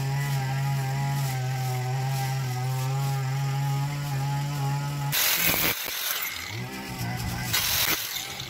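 A steady humming tone, then from about five seconds in an electric angle grinder's cutting disc cutting steel threaded rod, a harsh grinding noise in uneven bursts.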